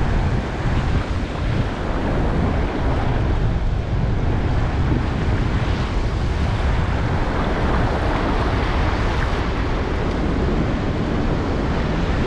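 Wind buffeting the microphone over the steady wash of surf running up a sandy beach.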